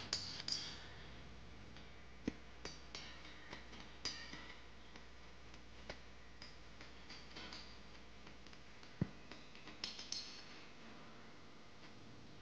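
Faint background hiss and low hum with scattered soft clicks and ticks, the sharpest about two seconds in and about nine seconds in.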